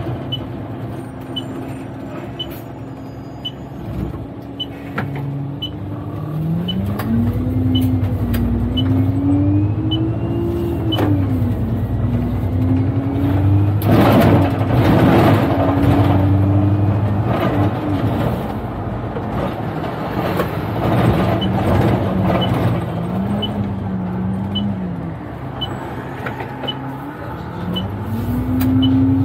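Double-decker bus engine driving, its note rising and dropping back several times as it gathers speed and changes gear, with a light steady ticking over it. A loud rush of noise swells up about fourteen seconds in and fades after a few seconds.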